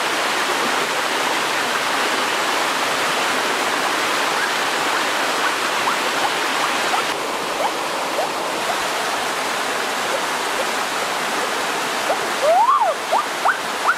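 Rushing water of a rocky stream's rapids, a steady hiss. Near the end, a few short high-pitched calls that rise and fall cut in over it.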